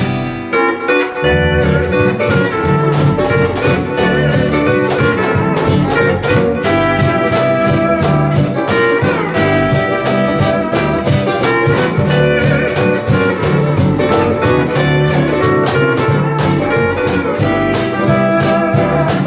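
Instrumental Hawaiian music played live: a Hawaiian steel guitar carries the melody with sliding notes over strummed ukulele and rhythm guitar, with bass and light percussion. The bass comes in fuller about a second in.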